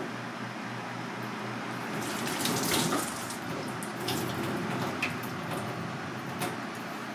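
Water running from a kitchen tap into a stainless steel sink, splashing as a hand goes under the stream; it gets louder about two seconds in.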